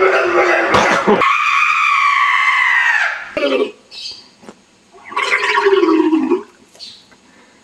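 A person screaming: one long, loud, high scream that slides slowly down in pitch and stops about three seconds in. After short gaps, a gargling scream through a mouthful of liquid runs for about a second and a half near the end.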